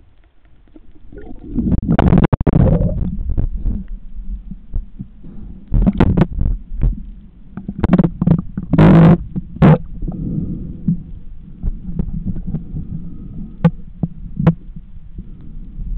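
Seawater sloshing and rumbling against an underwater camera as it moves through the water and breaks the surface. There are louder rushing splashes about two seconds in and around nine seconds in, and a few sharp knocks near the end.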